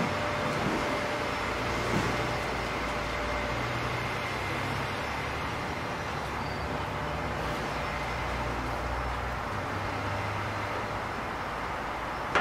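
Steady low rumble and hiss of background noise, with a faint tap about two seconds in.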